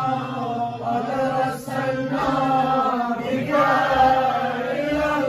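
A man's voice chanting a devotional Islamic recitation into a microphone, in long melodic phrases.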